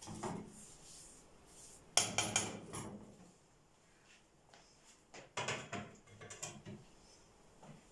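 Kitchen utensils and dishes clattering: a burst of sharp clinks about two seconds in, and another run of clinks a little past the middle.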